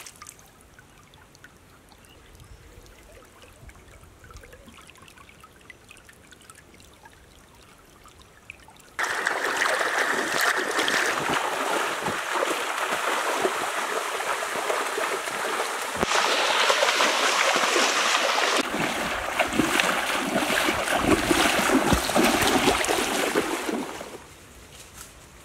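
Faint trickling stream water, then a sudden switch to loud, continuous splashing of water as people wade through a shallow stream. The splashing drops away near the end.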